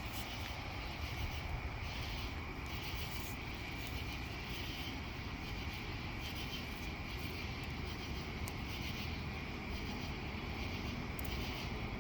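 Steady night chorus of crickets, a constant high-pitched trilling, over a low steady rumble, with a few faint clicks.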